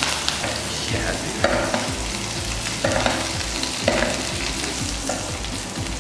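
Flour-dredged sweetbreads frying in foaming butter with thyme, sizzling steadily, while a spoon bastes them with the hot butter. Louder bursts of sizzling come about once every second or so as each spoonful is poured over.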